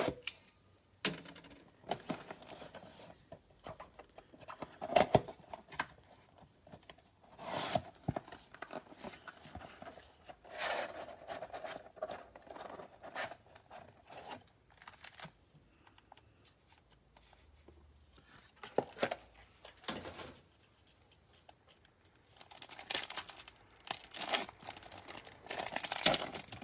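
Cardboard card box being torn and pried open with gloved hands: a series of irregular rips, scrapes and rustles. Near the end a foil trading-card pack crinkles as it is handled, in a busier run of sharp crinkling.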